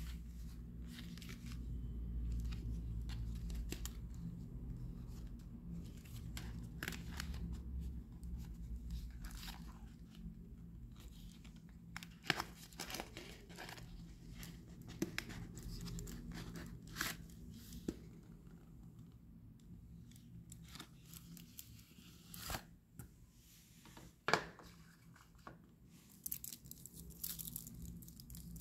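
Cardboard chocolate-bar box being handled and torn open by hand: scattered taps, scrapes and short tearing sounds over a low steady hum. Near the end, the foil-wrapped bar crinkles as it is pulled out and handled.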